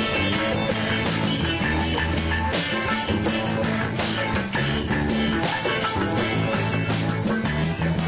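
Rock music with guitar, bass and drums playing at a steady beat.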